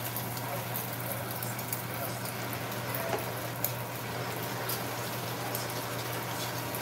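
Egg frying in hot vegetable oil in a pan: a steady sizzle with many small pops and crackles scattered through it.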